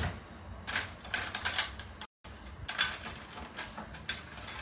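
Kitchen handling noises out of frame: a run of short clicks and rustles as things are picked up and moved. The sound cuts out completely for a moment about two seconds in.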